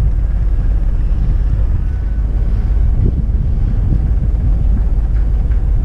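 Wind buffeting the microphone: a loud, steady, gusting rumble, heavy in the low end, aboard a yacht under way.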